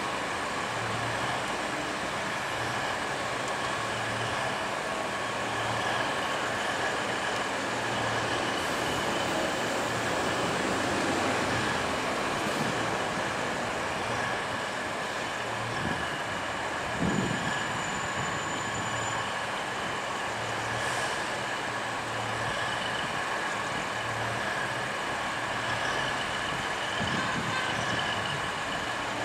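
Diesel multiple unit idling while stationary: a steady mechanical hum with whining tones and a low throb about once a second. There is a brief knock about halfway through.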